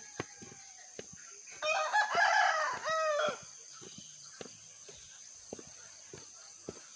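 A rooster crowing once, a drawn-out crow of nearly two seconds starting about one and a half seconds in and ending on a falling note. Footsteps on a dirt path tap faintly underneath.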